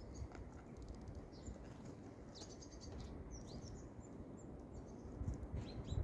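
Small birds giving short, high chirps here and there, with a few soft taps as tits hop and peck at grain on a wooden feeder tray.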